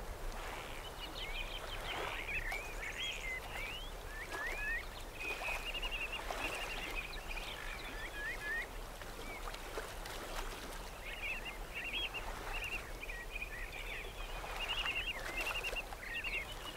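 Songbirds chirping, many short twittering calls one after another over a faint steady background hiss.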